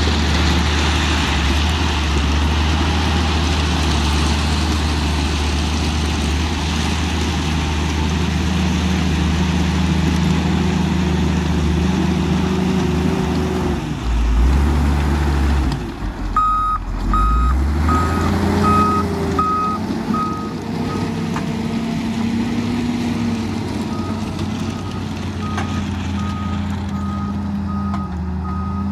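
Motor grader's diesel engine running steadily under load; about halfway through the engine note dips and changes, and a reversing alarm starts beeping at about one and a half beeps a second, pausing briefly and then carrying on to the end.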